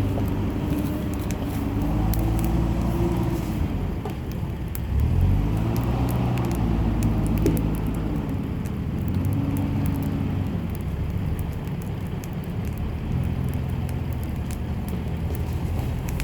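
Vehicle engines humming and rising and falling in pitch as cars pass, about four times, over the scattered crackle of a wood campfire burning.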